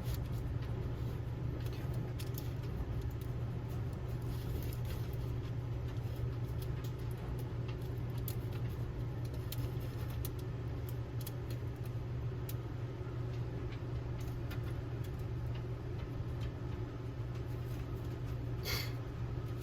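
Steady low hum with scattered small clicks and taps of glass mason jars and metal lids being handled and fitted into a pot, a louder tap near the end.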